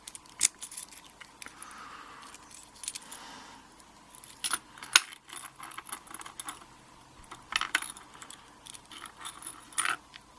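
Light metallic clicks and clinks, scattered at irregular intervals, from the brass core and small parts of a pin-tumbler padlock being handled.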